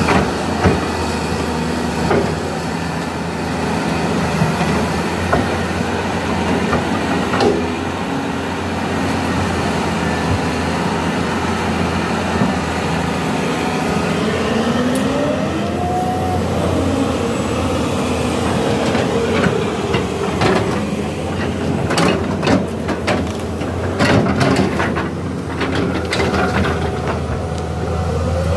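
Caterpillar 320D tracked excavator working, its diesel engine running steadily with a low hum. About halfway through, a whine rises and falls, and in the last third comes a run of sharp clanks and knocks.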